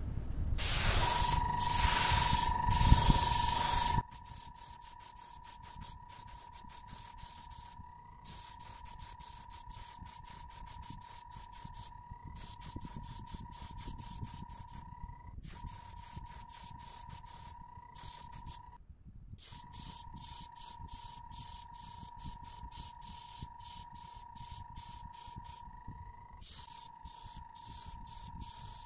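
Airbrush spraying primer onto plastic lure blanks, a loud hiss for the first few seconds that cuts off sharply. After it stops, a faint steady whine carries on under light ticking.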